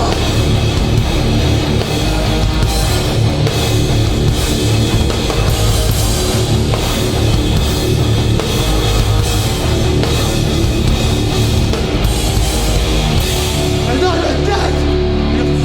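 Hardcore band playing live and loud: heavily distorted guitars, bass and pounding drums with no vocals. About 14 s in the drums and cymbals drop away and the guitars and bass ring on with held notes.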